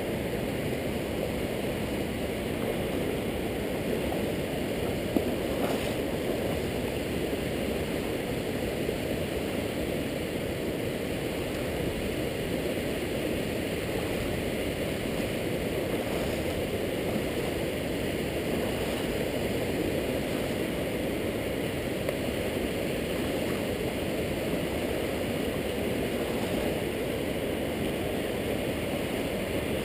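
Steady, even rush of shallow river water flowing over a rocky riverbed, with the spill of a low dam upstream; the sound sits low and muffled. One brief knock about five seconds in.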